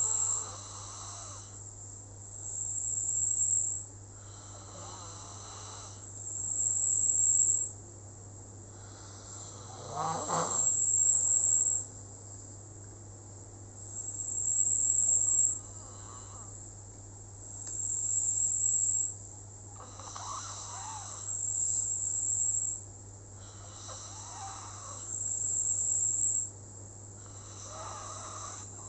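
Steady, rhythmic snoring: a loud, rasping snore about every three and a half to four seconds, each with a hissy breath. A steady low hum runs underneath.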